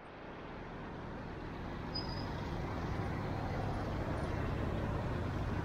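Steady outdoor background noise, a low rumble and hiss that fades in over the first second and then holds level. A brief high note sounds about two seconds in.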